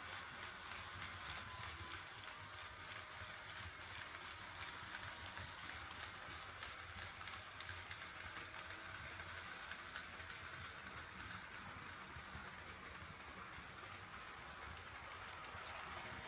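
HO scale model train running on KATO Unitrack sectional track: a steady rolling rattle of small wheels over the rail joints, with a faint whine.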